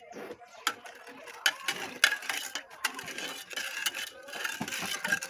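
Kitchen utensils clinking and knocking against dishes in an irregular run of sharp clicks, as lemon juice is made by hand.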